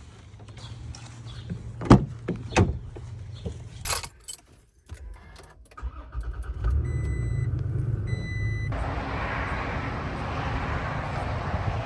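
Inside a pickup truck's cab: a couple of sharp clicks and keys jangling, then the engine starts about six and a half seconds in. A warning chime beeps repeatedly, and near the end a steady rushing noise takes over.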